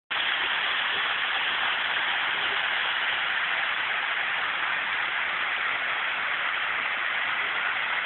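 Large waterfall: water pouring and rushing steadily, with no change. Heard through a low-quality phone recording that cuts off the high end.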